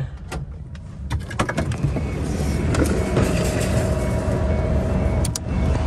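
Clicks and knocks of a car door being opened and the driver climbing out, over a steady wash of road traffic noise that grows louder about a second in.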